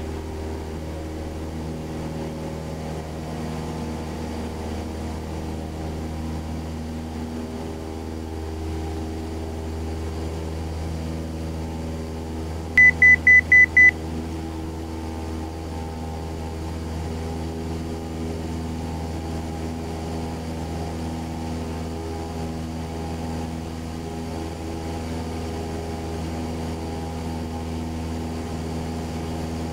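Piper Cherokee's single propeller engine idling steadily while the plane holds short for takeoff. About a third of the way in, five short high beeps sound in quick succession.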